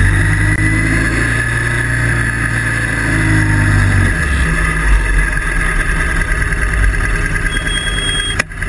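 Motorcycle engines running as a mass of bikes rides past. One engine's steady low drone stands out for the first four seconds, then the mixed engine noise carries on, broken by a short sharp click and dip near the end.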